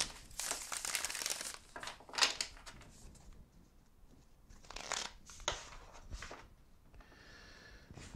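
A tarot deck being shuffled by hand: a few short bursts of cards riffling and flicking, the strongest near the start and about two and five seconds in, with quieter rustling of cards between.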